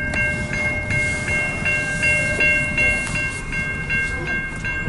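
Railroad crossing bell ringing steadily at a little under three strokes a second, over the rumble of a slow-moving CN freight train passing the crossing.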